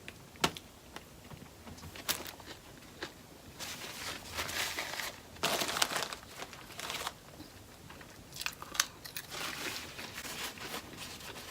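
A person eating close to the microphone: crunchy bites and chewing, with crinkling of food packaging.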